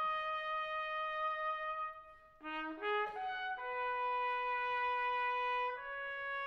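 Solo trumpet playing a slow melody of long held notes, with a short run of quick rising notes about halfway through.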